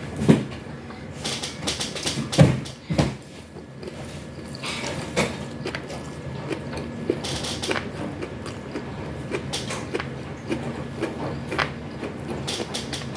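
A person eating: chewing and mouth sounds with scattered clicks and knocks, louder knocks near the start and around two and a half seconds, then a run of small clicks.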